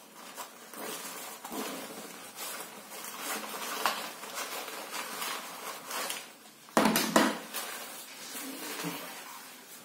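A waist bag and the things in it being handled: a run of rustling with many small clicks, then two loud knocks close together about seven seconds in.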